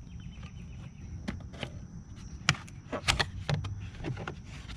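Scattered light clicks and knocks of hand tools and parts being handled while a top panel in a BMW E46 engine bay is taken apart, over a low steady hum.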